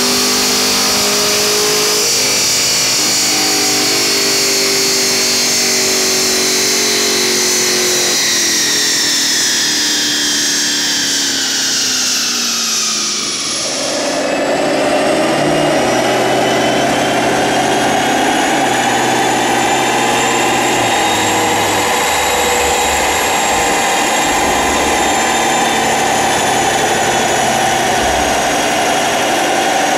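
Chevrolet Camaro SS V8 running at high revs on a chassis dynamometer, its pitch falling as it winds down about halfway through. After an abrupt change, it runs steadily again at speed with the drive wheel spinning on the roller.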